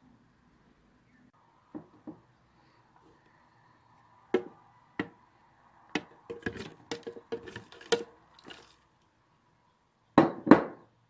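Irregular knocks and clunks of chunks of brownie being dropped into a blender jar, coming thickest in the middle and ending with two louder thuds.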